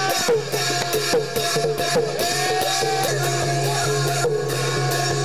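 Thai folk music played live on a long drum (klong yao) and small hand cymbals, keeping a steady beat with a wavering melody over it.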